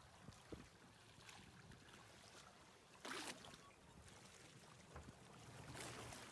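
Faint water sloshing and splashing against a boat's side as a swordfish is held at the surface by hand for release, with one short, louder splash about three seconds in.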